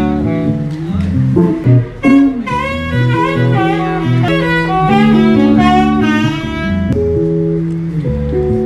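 Live small-band jazz: saxophone playing melodic phrases over hollow-body electric guitar chords and a low bass line. The saxophone drops out about seven seconds in, leaving the guitar and bass.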